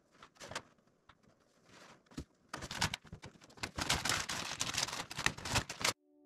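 Large sheets of paper being handled: a few light taps and rustles, then about two and a half seconds in a dense run of crinkling and sliding paper with sharp little ticks, which cuts off suddenly just before the end.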